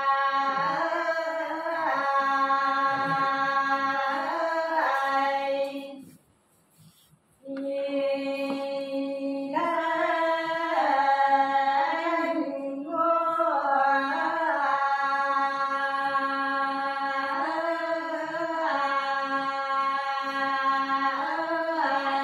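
Sán Dìu soọng cô folk song sung by one unaccompanied voice in long held notes with wavering turns between them. There is a breath pause about six seconds in before the line resumes.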